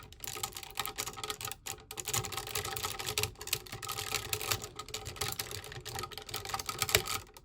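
Hard plastic toy robot parts clicking and rattling as they are handled and clipped together, a steady run of small irregular clicks with a sharper click near the end.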